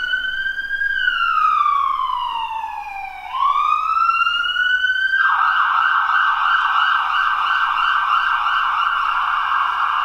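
Ambulance siren sound effect played through laptop speakers. A slow wail rises, falls and rises again; about five seconds in it switches to a fast, rapidly repeating yelp.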